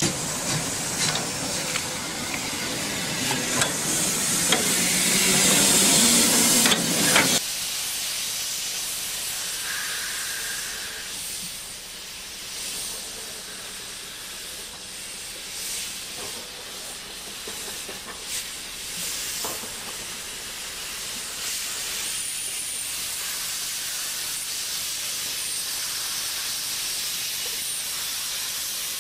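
Steam tank locomotive 86 457 passing close with a loud rumble and rush of steam, which cuts off abruptly about seven seconds in. After that comes a steadier, quieter hiss of steam from a second steam tank locomotive, 74 1192, as it runs past with its train.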